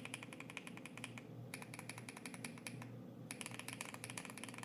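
Fast typing on a mechanical keyboard fitted with MMD Princess tactile switches: a steady stream of key clicks, with a short pause about a second in and another about three seconds in.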